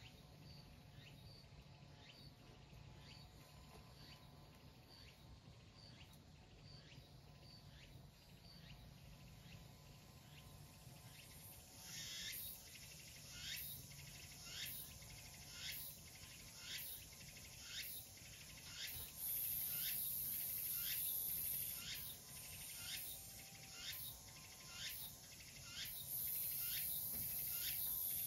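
A short chirp, falling in pitch, repeated at a steady pace of about three every two seconds, growing much louder about twelve seconds in. From about nineteen seconds a high hissing buzz, like an insect's, joins twice for a few seconds each time.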